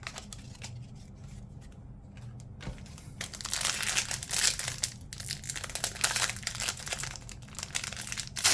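Foil wrapper of a trading-card pack crinkling as it is torn open by hand, starting about three seconds in after a few faint taps of card handling.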